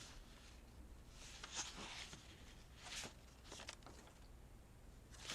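Near silence with a few faint, short rustles and scuffs of paper and craft materials being handled.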